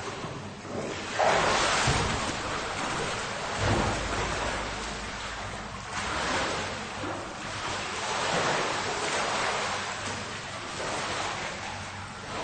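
Pool water splashing and sloshing from a swimmer's strokes, in swells every couple of seconds; the loudest splash comes about a second in.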